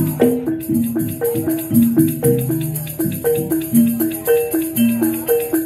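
Javanese gamelan accompaniment for a jaranan dance: struck bronze metallophones play a steady, repeating melody of ringing notes, about two to three a second, with a high rattling percussion over it.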